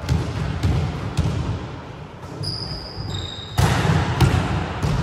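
Volleyballs being hit and bouncing on a wooden gym floor, echoing in a large hall: scattered sharp smacks, with a high-pitched squeak in the middle and busier, louder hits from a little past halfway.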